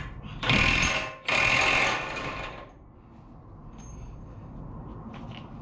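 Impact wrench hammering on a 36 mm front axle nut in two bursts, a short one about half a second in and a longer one ending near the middle.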